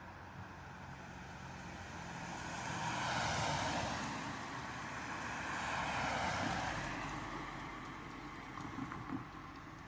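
Two road vehicles pass close by in turn, a van and then a car, their tyre and engine noise swelling and fading away; loudest about three and six seconds in.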